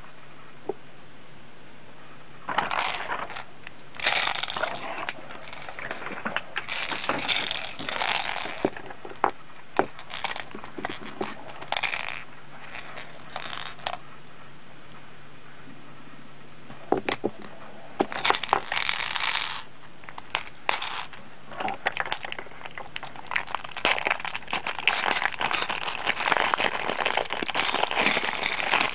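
Clear plastic packaging crinkling and crackling in irregular bursts as it is handled and pulled off, with sharp clicks among them and a lull of a few seconds midway. A faint steady hum runs beneath.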